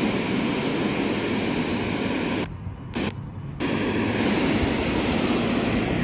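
Handheld weather radio putting out steady static hiss, which cuts out twice briefly near the middle. A low wind rumble on the microphone continues underneath.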